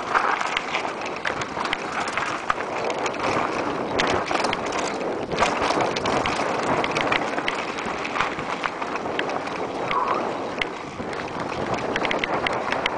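Mountain bike ridden fast down a rocky trail: a steady rush of wind on the microphone, with the tyres rolling over loose stone and frequent short rattles and knocks from the bike over rocks.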